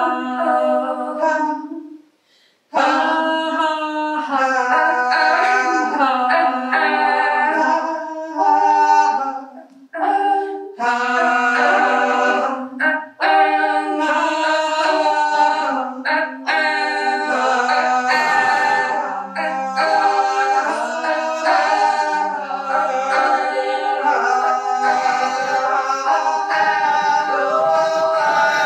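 Unaccompanied singing in long held notes, at times two or more voices at once, with a short break about two seconds in.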